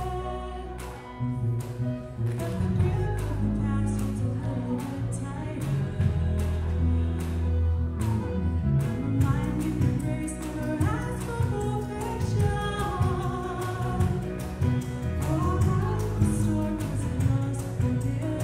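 Live worship band playing a contemporary Christian song: electric bass and electric guitar over a steady percussive beat, with a woman singing lead through the church PA.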